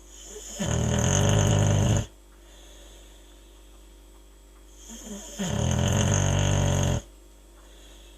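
Boxer dog snoring loudly in its sleep: two long snores about five seconds apart, each lasting about a second and a half.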